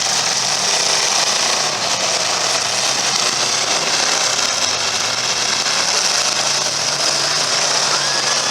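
Demolition derby cars' engines running together in a loud, steady din.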